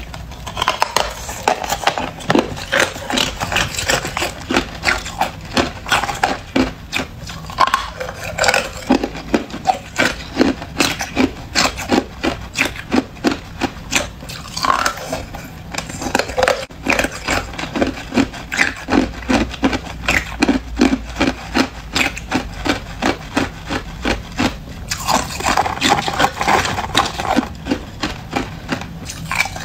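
Close-up chewing of hard clear ice: a steady run of crisp crunches, about two to three a second, with denser crackling as fresh pieces are bitten.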